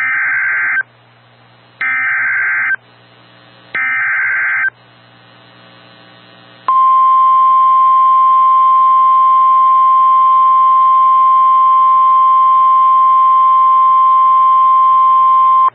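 NOAA Weather Radio Emergency Alert System alert: three short bursts of SAME header data, each a harsh digital warble about a second long with a second's gap of faint radio hiss between, then the steady single-pitch warning alarm tone held for about nine seconds. The tones announce a new warning, here a flash flood warning.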